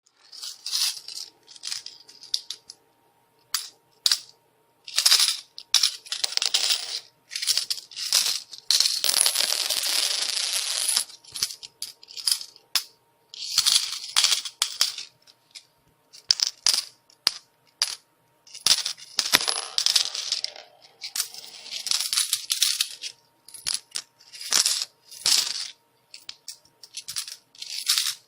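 Metal coins falling and clattering in repeated showers, each a burst of sharp jingling clinks lasting from a moment to a couple of seconds, with brief pauses between them.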